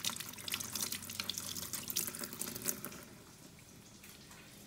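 Kitchen faucet running over a fish fillet held in the stream, water splashing into a stainless steel sink. The splashing dies down about three seconds in.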